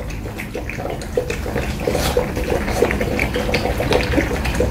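German shepherd puppies lapping water from a plastic bowl, a quick run of wet laps at about three to four a second.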